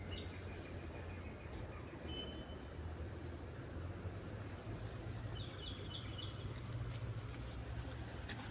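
Steady low hum of a honeybee swarm, with birds chirping now and then.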